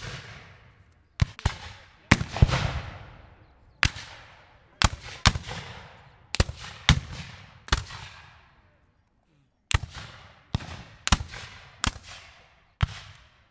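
Rifle muskets firing at random: about twenty sharp shots at uneven intervals, some singly and some in quick pairs or threes, each trailing off in an echo. The firing pauses for nearly two seconds after about eight seconds, then picks up again.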